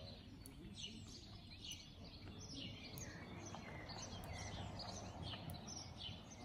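Small birds chirping, many short falling chirps about twice a second, over a faint low rumble.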